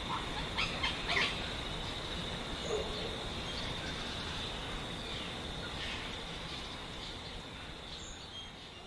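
A few short, harsh white cockatoo calls, two of them close together about a second in and fainter ones later, over a steady high hiss of outdoor background noise. The whole sound fades down near the end.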